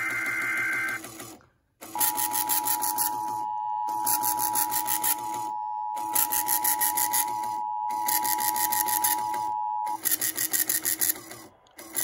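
TFT EAS 911 encoder-decoder sounding an Emergency Alert System alert through its small built-in speaker. First comes the last burst of the SAME header data tones, then a short pause. After that the steady two-tone attention signal is held for about eight seconds.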